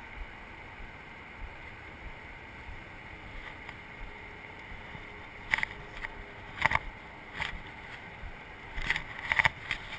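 Steady outdoor background noise of road traffic and wind, with a few short rustles and knocks from about halfway through, more of them near the end.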